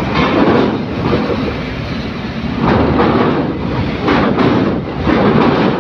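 Trucks driving off a ferry's bow ramp: engine rumble and the clanking and rattling of wheels rolling over the steel ramp plates and grating. It comes in several loud surges.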